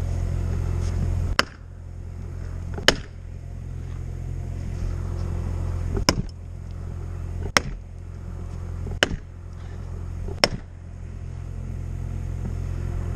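Felling wedges being pounded into the back cut of a tree, six sharp strikes about a second and a half apart, as the wedges lift the tree toward its fall. An engine runs steadily underneath.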